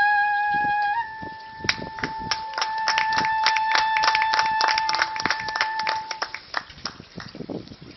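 Clarinet holding one long note that steps up slightly about a second in and ends about six seconds in. Scattered hand clapping from a small audience starts under the note about two seconds in and dies away after it.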